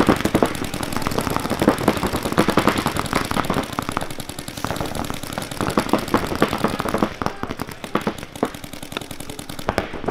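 Several paintball markers firing rapid strings of shots at once, a dense run of overlapping pops that thins out a little about four seconds in.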